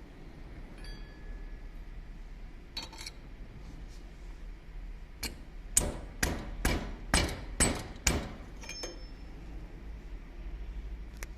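Hard metal-on-metal clicks, then a run of about eight sharp knocks, a few a second, as an O-ring installation tool is worked onto a Caterpillar C7 diesel fuel injector. One last click comes near the end.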